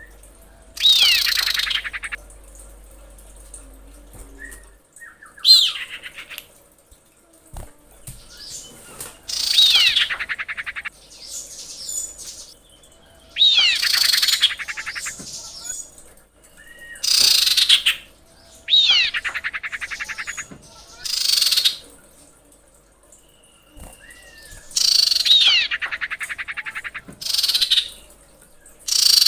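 Female common iora calling to males: a fast, rasping, downward-sweeping trill of about a second, repeated about ten times every two to four seconds, with short whistled notes in between.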